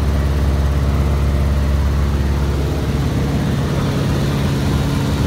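Cessna Cardinal's single piston engine and propeller running at a steady cruise drone, heard from inside the cabin. The deepest part of the drone eases slightly about three seconds in.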